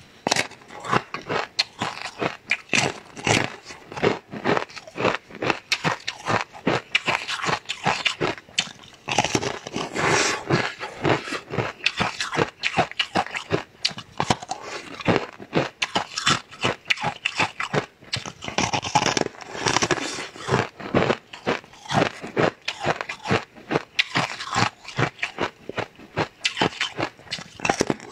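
Close-miked biting and chewing of a soft, translucent purple jelly: a dense run of wet clicks, squelches and small crunches that continues without a break.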